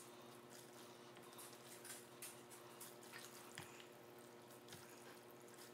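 Near silence, with a few faint soft clicks and wet sounds from chopsticks lifting and stirring noodles in a glass bowl, over a faint steady hum.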